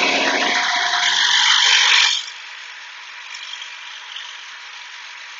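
Steel chisel being ground on a Shopsmith-driven grinding wheel, its bevel still being worked down to meet the back. For about two seconds the steel rasps loudly against the stone, then it turns quieter and steady to the end.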